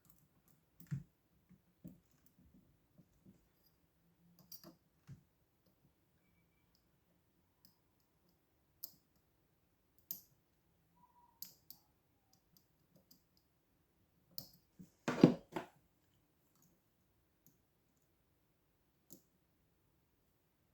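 Lock-picking tools working in a lock: scattered small clicks and taps, with a louder clatter of a few knocks about 15 seconds in.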